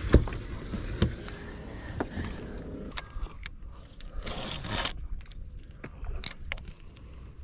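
Clicks and knocks of fishing gear handled on a boat deck, starting with a knock as the livewell lid shuts. About four seconds in, a short rush of noise as a spinning rod is cast, then a few light clicks from the reel.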